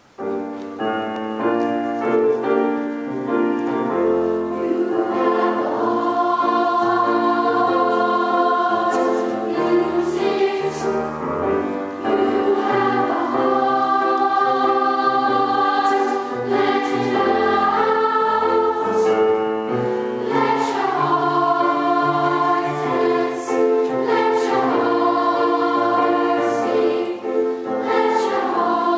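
Large choir of children's and teenage voices singing a sustained choral piece, starting abruptly right at the beginning.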